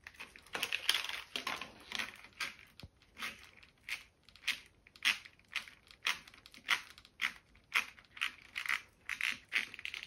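A cable being fed through a split plastic cable hose: a run of short rustling, scraping strokes, two or three a second, as the hose is worked along the cable.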